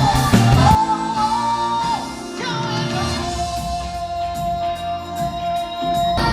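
Music with a singing voice: a held, gently wavering sung melody over sparse accompaniment, after a drum beat drops out under a second in.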